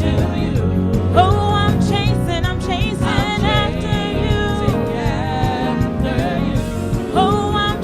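Gospel worship music: voices singing over a full band accompaniment.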